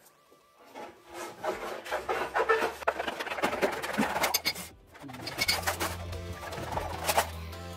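Hand tin snips cutting a sheet of galvanized sheet metal in a series of short cuts, over background music with a steady bass line.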